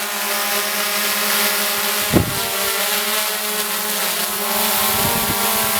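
Quadcopter drone hovering: the steady, pitched hum of its motors and propellers as the blades bite into the breeze to hold it in place. A brief thump about two seconds in.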